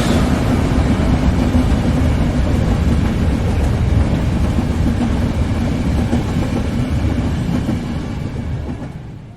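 Train running on the rails, a steady heavy rumble of wheels and cars that fades away over the last second or so.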